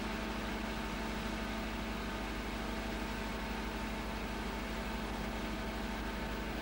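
Steady background hiss and electrical hum with no other sound: the noise floor of a 1970s television recording.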